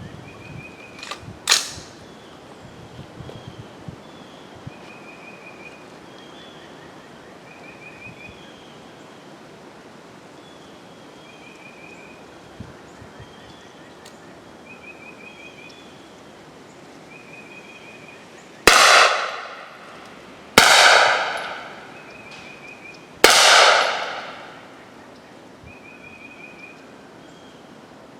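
Three 9mm gunshots from handloaded rounds in the second half, about two and three seconds apart, each trailing off in an echo over about a second. A sharp click comes about a second and a half in, and faint short high chirps repeat between the shots.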